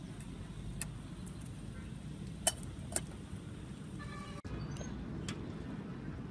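A metal ladle clinking a few times against a steel cooking pot while stirring, with two sharp clinks about half a second apart in the middle, over a steady low rumble.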